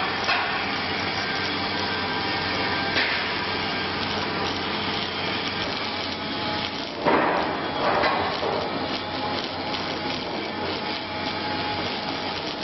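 Steady welding arc hiss and crackle while a steel tube is welded round its joint to a machined end cone, with a low hum beneath and a couple of louder surges about seven and eight seconds in.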